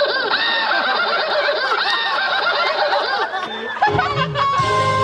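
Many people laughing together, with lots of overlapping voices. About four seconds in the laughter gives way to music with a low pulsing line and steady tones.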